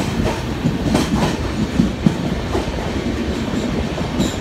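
Passenger train running through a tunnel, heard from beside the coach door: a loud, steady rumble of wheels on rail, with a few sharp clacks from the rail joints about a second in.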